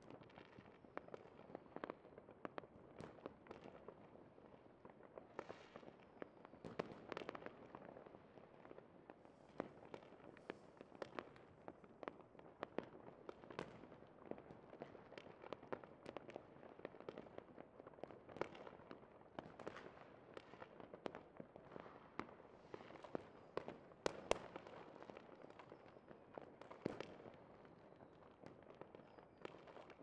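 Fireworks display: a continuous stream of irregular pops and cracks, several a second, with one louder sharp bang about three-quarters of the way through.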